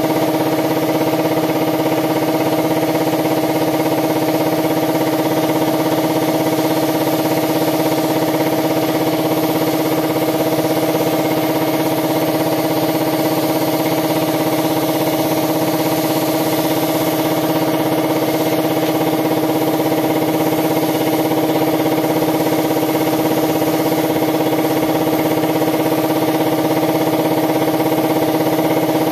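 Air compressor running with a steady hum, with the steady hiss of compressed air through a spray gun as it sprays black paint.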